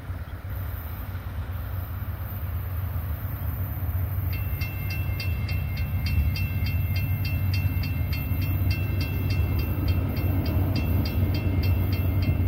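A railroad grade-crossing bell starts ringing about four seconds in, a steady ding about three times a second, which signals an approaching train. Under it, a low rumble from the oncoming CSX freight train slowly grows louder.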